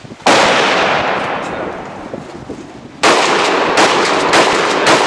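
Gunfire: one loud shot about a quarter second in with a long fading echo, then about three seconds in another sudden blast followed by several more shots in quick succession.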